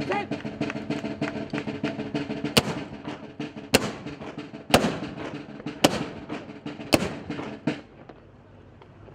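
Band music led by drums: rapid snare drumming over steady held tones, with five loud drum strikes about a second apart. The music stops about eight seconds in.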